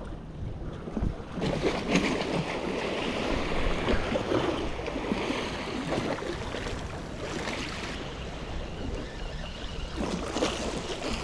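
Strong, gusty sea wind buffeting the microphone, with the sea washing against the shore underneath.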